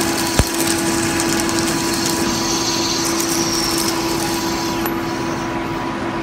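Metal lathe turning a metal shaft with an indexable carbide-insert tool, cutting dry: a steady motor and spindle hum over the hiss of the cut, with one sharp click about half a second in.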